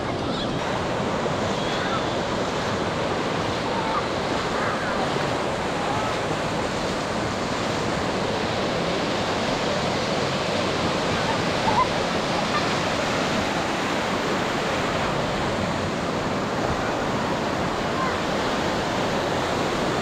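Sea surf breaking and washing up a sandy beach, a steady wash, with faint voices of a crowd of beachgoers.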